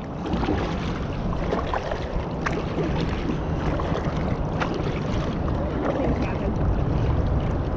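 Kayak paddling: double-bladed paddle strokes and water splashing and dripping, with a few small knocks, under a steady rumble of wind on the microphone.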